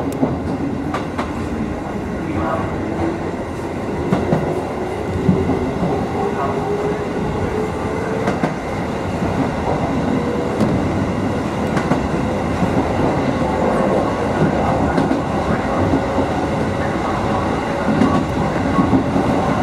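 Kotoden electric train (formation 1104F) running, heard from inside the front of the car. A motor whine climbs steadily in pitch over the first half as the train picks up speed, then holds level, over continuous wheel and track noise with scattered clicks from rail joints.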